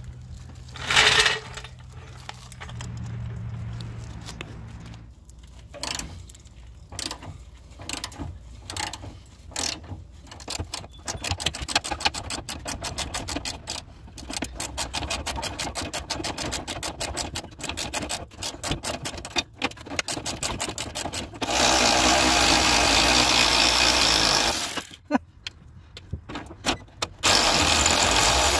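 A hand ratchet clicks rapidly, over and over, on the rusted rear fuel tank strap bolt. Then a cordless electric ratchet runs in two steady spurts of a few seconds each, spinning the bolt out. A couple of short knocks come right at the start.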